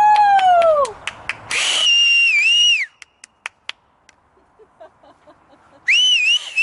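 People cheering: a high 'woo' call that falls away in the first second, then two loud, high two-part whistles, one about two seconds in and one near the end, with a few sharp claps between them.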